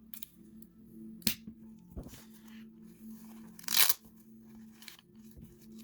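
Handling of a folding pocket multi-tool: a couple of sharp metal clicks, then a short, louder rustling scrape about four seconds in.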